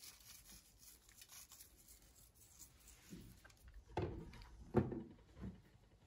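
Faint handling sounds at a kitchen table: soft rubbing, then four short soft knocks from about three seconds in.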